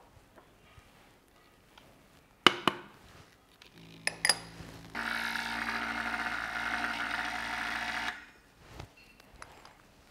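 Small electric motor of a flour sifter running steadily for about three seconds and then cutting off, after a few sharp knocks and clicks of the sifter against the mixing bowl.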